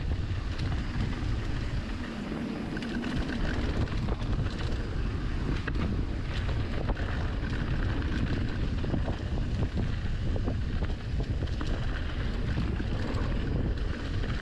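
Wind buffeting the microphone of a moving mountain bike, with rattling clicks and knocks from the bike going over a rough trail.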